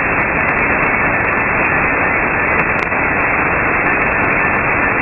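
Steady hiss of band noise from an SDR receiver in upper-sideband mode on the 6-metre (50 MHz) band, with no voice readable. The noise stops sharply above about 2.7 kHz, the edge of the receiver's sideband filter.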